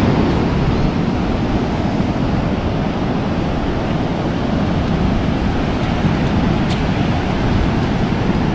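Ocean surf washing steadily onto a beach, with wind on the microphone.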